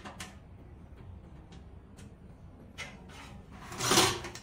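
Hex key tightening screws on a metal wood stove's handle: a few faint clicks of tool on metal, then a louder scraping sound about four seconds in.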